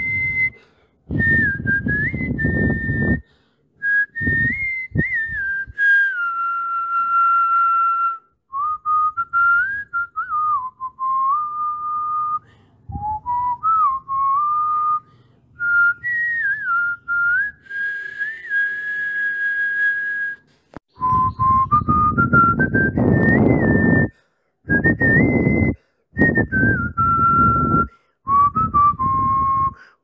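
A whistled tune: one pure melody line stepping up and down through short phrases. A rougher, lower sound comes and goes beneath it and is heaviest in the last third.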